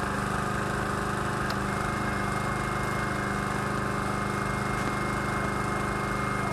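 Fire engine's motor running steadily, an even engine drone with no change in speed.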